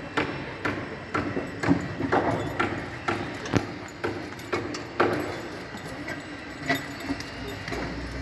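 Irregular knocks and clanks of construction work, several a second, some ringing briefly like struck metal.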